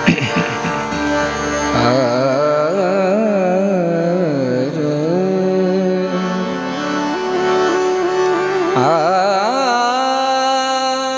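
Warkari bhajan music: a high, ornamented vocal alaap with wavering, gliding notes over steadily held harmonium notes. There is a sharp drum stroke right at the start.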